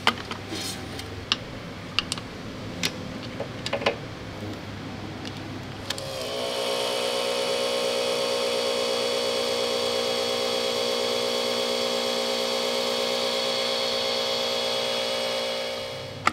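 Light clinks of metal parts being handled. About six seconds in, a motor starts with a slight rise in pitch and runs at a steady whine for about ten seconds, then dies away near the end.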